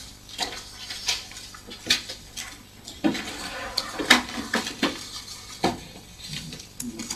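Papers and small objects handled on a table close to the microphones: irregular sharp taps, clicks and knocks over soft paper rustling.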